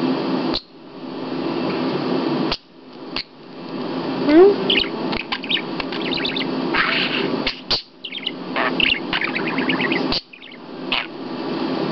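Pet budgerigar warbling and chattering: a fast, continuous run of chirps, clicks and short rising whistles, broken by a few brief pauses.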